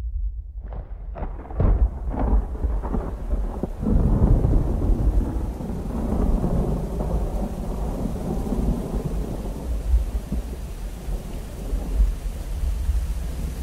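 Thunderstorm sound effect: a run of sharp crackling thunder cracks in the first two seconds, then long, loud, low rumbling thunder over a steady hiss.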